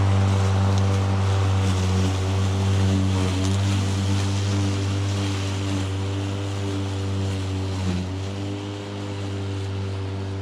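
Stiga Twinclip 950e 48-volt battery lawnmower cutting very tall grass: a steady motor and blade hum over the rush of grass being cut. The pitch sags briefly twice as the blades meet thick grass.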